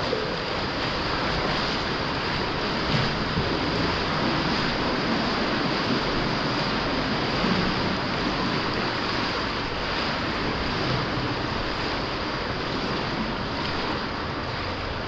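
Steady rush of storm-swollen river water flowing through a cave.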